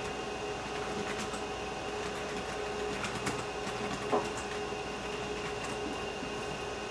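Running IBM PS/2 Model 25 computer: a steady hum with a constant tone from its fan and spinning hard drive, with a few faint clicks.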